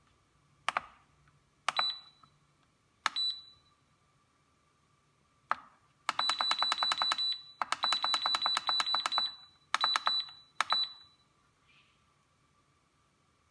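Turnigy hobby LiPo balance charger's buzzer beeping as its buttons are pressed. A few single short beeps come first, then two quick runs of rapid beeps, around ten a second, as a setting is scrolled, and then two last single beeps.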